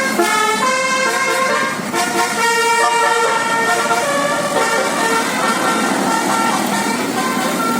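Indonesian tour bus's basuri telolet horn playing a quick melody of stepped, multi-tone notes. A noisy rush runs underneath it.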